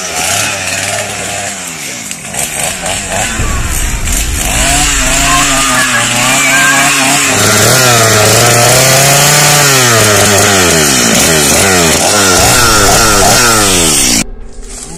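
Chainsaw engine revving, its pitch climbing and sinking again and again, then cutting off abruptly near the end.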